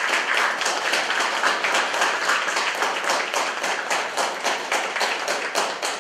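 Audience applauding, a dense run of many hands clapping at once.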